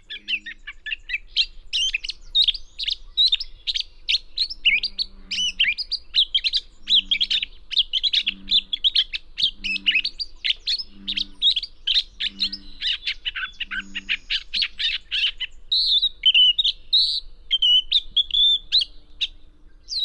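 Gray catbird singing a long, rapid string of varied chirps, whistles and squeaky notes, shifting about fifteen seconds in to slower warbled phrases: the jumbled song of a catbird that mixes in imitations of many other species. A low, regularly repeated note sounds in the background from about five seconds in to about fourteen.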